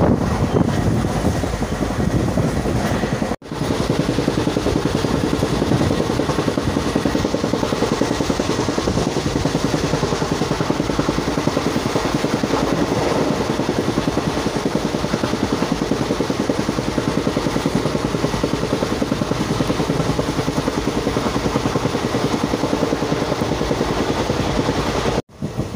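Indian Railways passenger train running at speed, heard from beside an open barred window: a steady noise of wheels on the rails. The sound cuts out briefly twice, about three seconds in and near the end.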